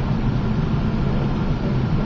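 Steady low hum with a hiss over it: constant background noise that neither rises nor falls.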